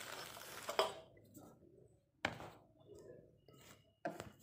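Handling noise from a phone held close to its microphone: rustling, then a few separate sharp knocks with quiet gaps between.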